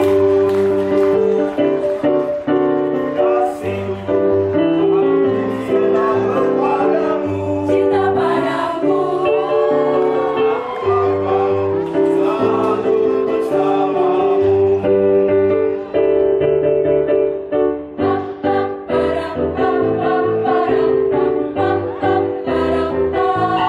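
An adult mixed choir, mostly women's voices, singing a song in held notes over a sustained instrumental accompaniment with long bass notes.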